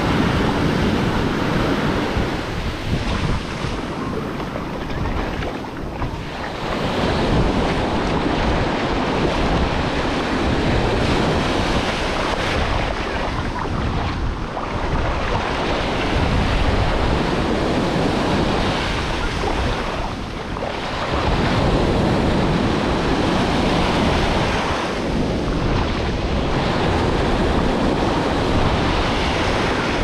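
Ocean surf breaking and washing up the beach in a continuous rush of water that rises and falls as each wave comes in and draws back. Wind buffets the microphone underneath it.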